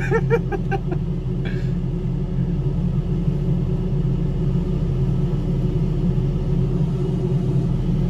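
Kubota excavator's diesel engine running steadily, a low even drone.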